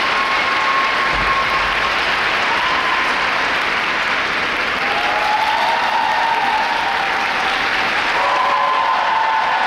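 Ice-rink crowd applauding steadily, with a few drawn-out high calls over the clapping in the second half.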